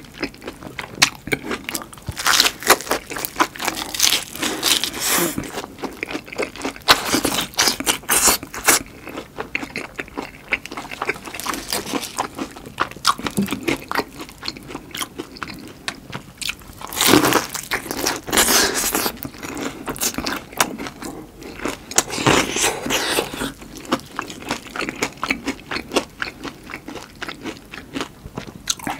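Close-miked crunching and chewing of battered, deep-fried giant chili peppers: a stream of crisp crackles from the fried batter, with several bursts of heavier crunching as fresh bites are taken.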